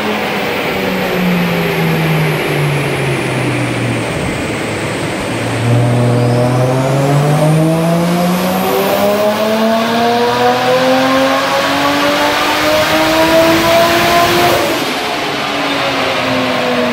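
Nissan Skyline R34 GTT's turbocharged RB25DET straight-six, fitted with a screamer pipe, running on a chassis dyno. The revs fall away for the first few seconds. About five seconds in it goes to full throttle and pulls in one long, steadily rising power run for about nine seconds, then lifts off near the end and the revs drop.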